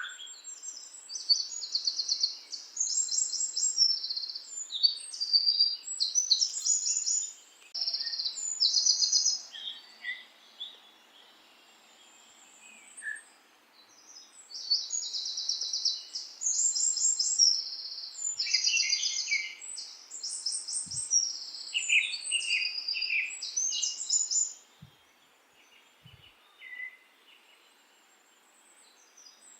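Birds singing in quick, high chirping trills, in bouts separated by short pauses, over a faint steady hiss.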